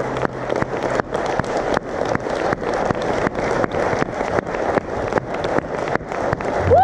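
Small audience applauding, many hands clapping at an uneven rate, with the acoustic guitar's last chord fading under it in the first second.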